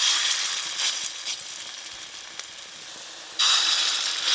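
Dollops of pointed-gourd-leaf and gram-flour batter dropped into hot mustard oil in a wok, frying with a loud sizzle. The sizzle starts sharply as the first goes in, fades gradually, then flares up again a little over three seconds in as the next one is added.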